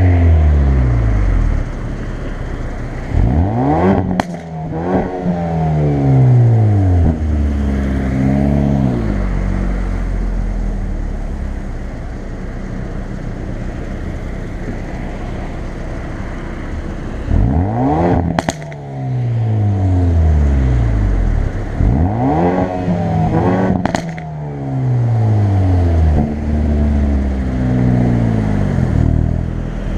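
Hyundai i30 N's 2.0-litre turbocharged four-cylinder engine and exhaust in N mode, revving up hard and falling back several times, with a steady cruising stretch in the middle. Three sharp exhaust bangs come as the revs peak, about four, eighteen and twenty-four seconds in, with crackles as the revs drop.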